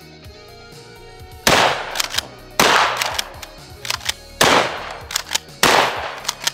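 Four blasts from a Stevens 320 Security 12-gauge pump shotgun, about one to two seconds apart, with short sharp clacks of the pump action between shots. Background music plays underneath.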